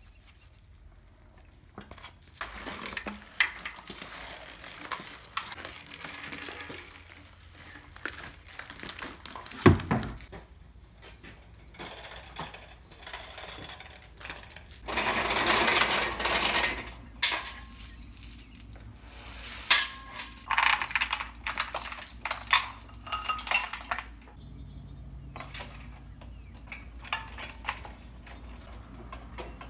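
Metal hand tools and engine parts clinking and clattering during work on an engine: many sharp clicks and knocks, one louder knock about ten seconds in, and a few longer bursts of rattling noise in the middle.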